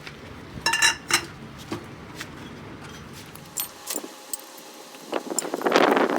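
Steel parts clinking and ringing as they are handled, with scattered lighter clicks. A low hum fades out partway through, and near the end there is a louder, harsh rush of noise about a second long.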